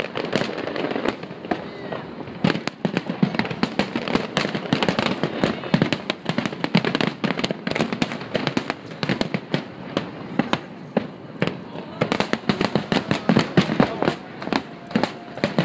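Aerial firework shells bursting in quick succession, several reports a second with crackling between them, without a pause.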